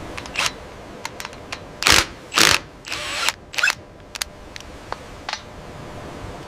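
Workshop machinery and tool sounds: a run of sharp mechanical clicks with several short hissing bursts, the loudest about two and two and a half seconds in.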